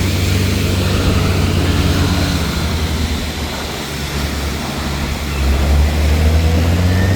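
Heavy truck diesel engine running steadily and loudly, working a concrete pour; it dips a little midway and swells louder about five seconds in.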